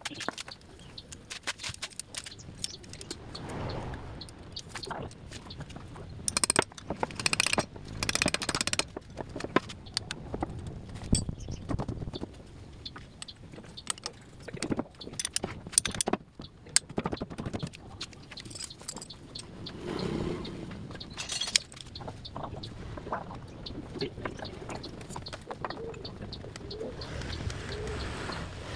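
Scattered metallic clicks and knocks as the parts of a Suzuki engine's cylinder head and rocker gear are handled on a wooden bench, with short bursts of rubbing as a cloth wipes the head.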